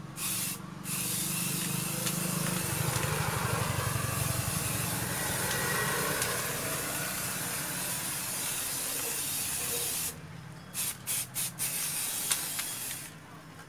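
Aerosol spray-paint can spraying black paint: one long continuous hiss lasting about nine seconds, then a few short bursts.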